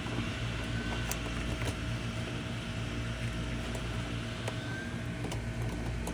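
Steady low mechanical hum with a few light clicks.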